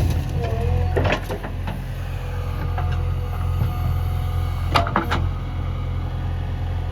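Heavy diesel engine running steadily under a loading job, with a couple of knocks about a second in and a cluster of sharper knocks around five seconds in.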